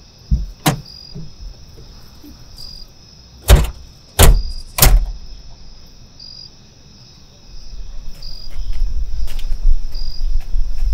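Pickup truck doors opening and slamming shut as two men get out: four sharp knocks, the loudest three between about three and a half and five seconds in. Crickets chirp steadily throughout, and a low rumble comes up in the last few seconds.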